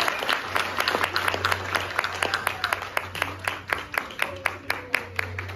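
Audience applause: scattered hand claps, each heard distinctly, several a second, thinning a little toward the end, over a low steady hum.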